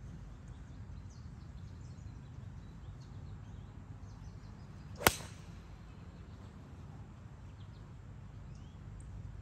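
A single sharp crack of a 4-iron striking a golf ball on a full swing, about halfway through.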